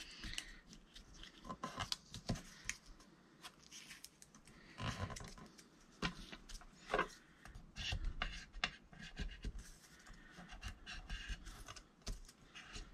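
Paper being handled and folded by hand: irregular soft rustles, crinkles and light taps as the edges of a white paper library pocket are creased over.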